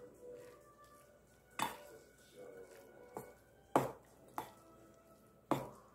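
Metal spoon clinking and scraping against a stainless steel bowl while stirring barley rice with gochujang: about five sharp clinks at uneven intervals, the loudest a little under four seconds in.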